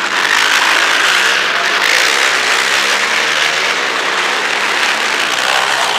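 Racing quad (ATV) engines revving up and down as they ride the dirt track, the pitch rising and falling with the throttle.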